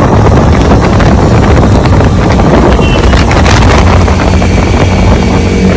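Motorcycles running at highway speed, with heavy wind rumble on the microphone; a steady engine note comes through more clearly near the end.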